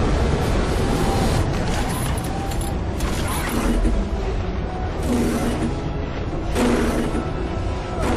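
Film soundtrack mix: a dramatic music score over a heavy low rumble and repeated surges of rushing, churning water from a whirlpool that is pulling a small boat under.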